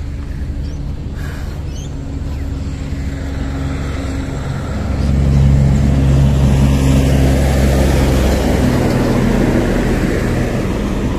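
Highway traffic passing close by: a vehicle engine's steady low drone that grows louder about five seconds in, with tyre and road noise swelling as it goes by.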